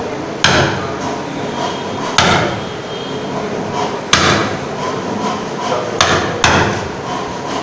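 Wooden mallet striking the handle of a chisel held upright in a piece of timber, chopping into the wood: five sharp knocks about two seconds apart, the last two close together.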